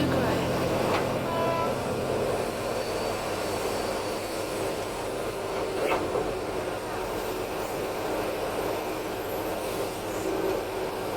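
Heavy earthmoving machinery running with a steady, noisy mechanical rumble, with one sharp click about six seconds in. Background music fades out about two seconds in.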